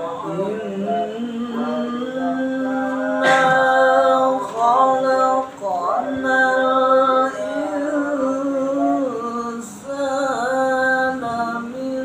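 A man's voice reciting the Qur'an in melodic tilawah style, drawing out long held notes with ornamented turns and glides in pitch, breaking off briefly a few times between phrases.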